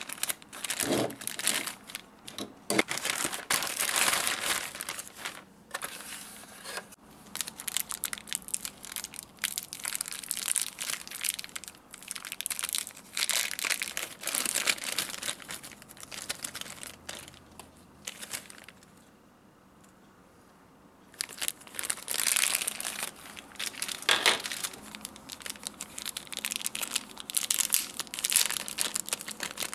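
Cardboard box and plastic packaging being opened and unpacked by hand: irregular crinkling, rustling and tearing with small clicks and taps, pausing for about two seconds partway through.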